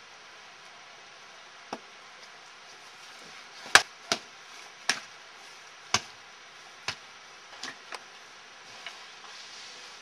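An axe splitting firewood on a chopping block: about nine sharp chops at uneven intervals, the loudest about four seconds in.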